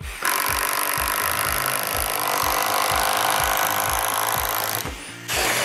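Kobalt 24V brushless impact driver spinning a half-inch self-feeding spade bit through a wooden beam. It runs steadily for about four and a half seconds, stops briefly, then runs again in a short burst near the end.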